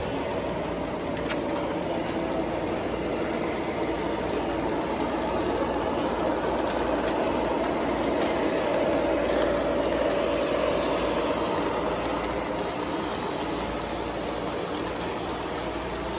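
O gauge model trains running on their track: a steady rolling rumble with a constant whine, growing a little louder in the middle and easing off toward the end.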